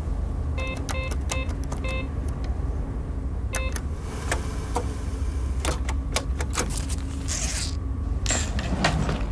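Cash machine keypad beeping as buttons are pressed: about five short beeps in the first four seconds, then a run of mechanical clicks and a short whirr from the machine near the end, over a steady low hum.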